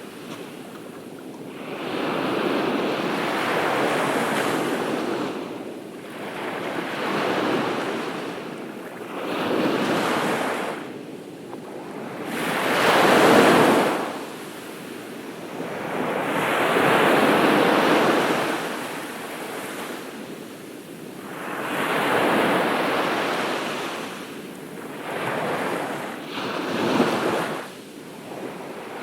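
Ocean surf: waves break and wash up the beach one after another. The sound swells and falls back about every three to four seconds, and the loudest wave comes near the middle.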